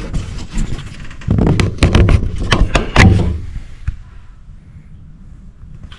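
A run of sharp knocks and clanks as engine parts are worked loose and handled, loudest between about one and three seconds in, then dying down.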